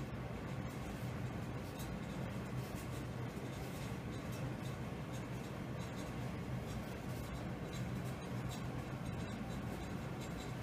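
Pen writing on a paper sheet: short scratchy strokes as a number line and its tick marks are drawn, over a steady low hum.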